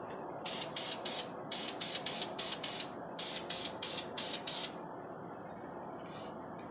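Aerosol spray can of black satin paint spraying a stainless steel tumbler in three runs of quick, sputtering bursts of hiss. The bursts start about half a second in and stop about two-thirds of the way through, over a steady background hiss.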